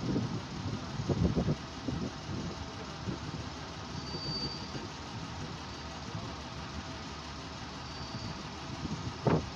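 ALn668 diesel railcar idling at a station stop, a steady running sound, with a few low thumps about a second in and near the end.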